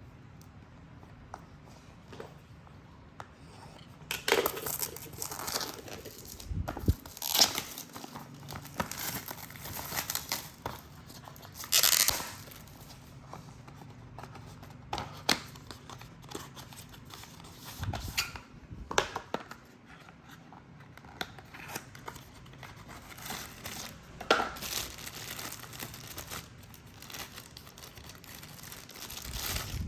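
Product packaging being opened and handled: plastic wrapping and packing material crinkling and tearing in irregular bursts. The bursts begin a few seconds in, and the loudest comes about twelve seconds in.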